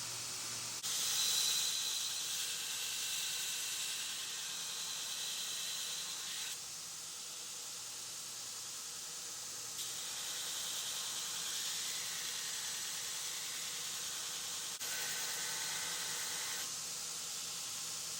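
Grinder abrading the steel of a knife blade made from an old file, during finish grinding of a full flat grind: a steady high hiss with faint whining tones, shifting in level and pitch every few seconds.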